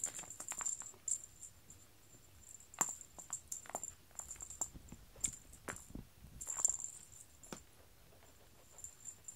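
Feather cat teaser on a string being flicked and dragged across foam floor mats: scattered light rustles and soft taps, loudest about three and six and a half seconds in.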